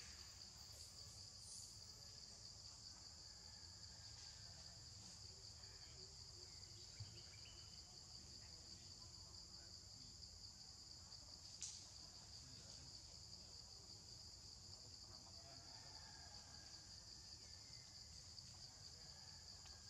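Faint, steady high-pitched insect chorus that does not let up, with one brief click about twelve seconds in.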